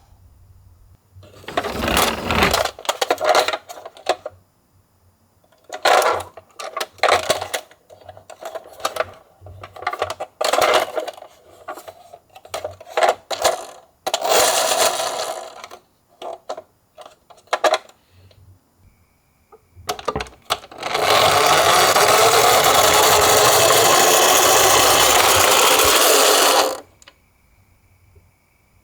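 Toy minicar being handled: scattered clicks, rattles and rustles, then a steady rushing noise for about six seconds near the end.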